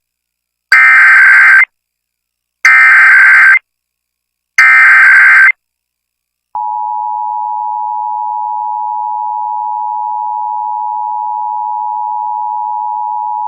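Emergency Alert System SAME header: three harsh, screeching digital data bursts of about a second each. About six and a half seconds in, the steady, loud two-tone EAS attention signal follows. Together they mark the start of a Required Monthly Test being broadcast over FM radio.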